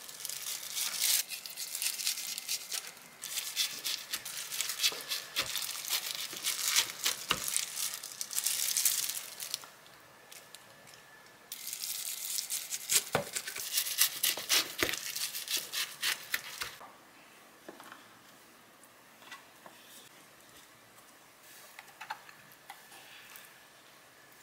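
Crackly rustling of disposable plastic gloves and a knife slicing through seaweed-wrapped gimbap rolls, with a few sharp knocks of the blade on the cutting board. After about 17 seconds it turns quieter, with a few soft clicks as the slices are set into a plastic lunchbox.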